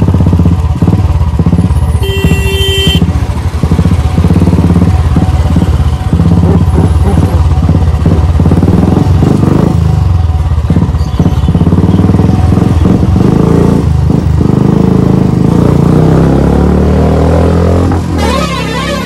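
Motorcycle engine running while the bike is ridden, its pitch shifting with the throttle. A brief high beep sounds about two seconds in.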